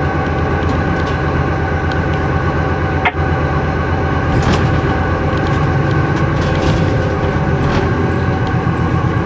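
Steady drone of a diesel locomotive heard from inside its cab while the train rolls, a dense low rumble with several steady tones over it. A brief sharp click about three seconds in.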